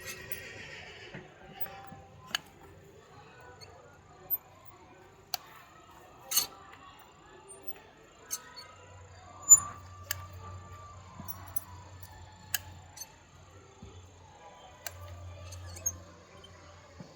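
Farrier's hoof nippers snapping through a donkey's overgrown hoof horn: sharp single cracks at irregular intervals, about eight in all, the loudest about halfway through. A low hum comes and goes in the second half.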